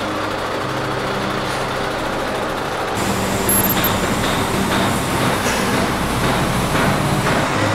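Heavy diesel vehicle engines running with a steady low hum; about three seconds in the sound changes to louder, noisier engine and machinery noise.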